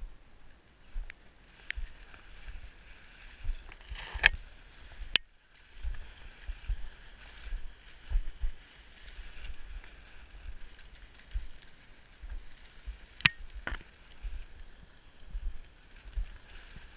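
Dry cattail and reed stalks rustling, scraping and snapping against a body-worn camera as it is pushed through them, with sharp clicks a few times and low, irregular thumps throughout.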